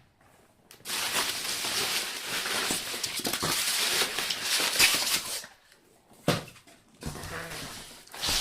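Packaging being handled and rummaged through in a box: a long stretch of crinkling and rustling, then a sharp knock and more rustling near the end.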